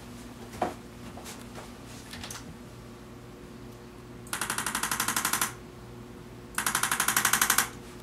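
Arthrostim handheld chiropractic adjusting instrument pressed against the lower back and firing two runs of rapid taps, about a dozen a second. Each run lasts a little over a second, and the second is slightly louder. A single light click comes just after the start.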